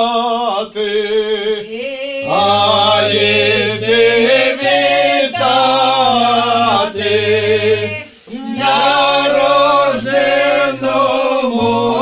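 A small folk group singing a Ukrainian Christmas carol (koliadka) unaccompanied in several voices, with long held notes. A low voice joins beneath the melody about two seconds in, and the singing breaks briefly for breath near eight seconds.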